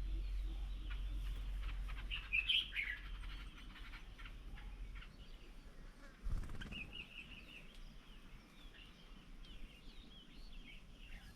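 Birds chirping and calling, with a quick run of short notes about two and a half seconds in and another just past halfway, over a steady low rumble; a brief low thump a little before halfway.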